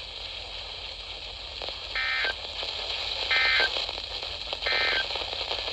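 Three short bursts of EAS digital data tones from a NOAA Weather Radio receiver, the end-of-message code that closes an alert, each about a third of a second long and about 1.3 s apart, over steady radio hiss.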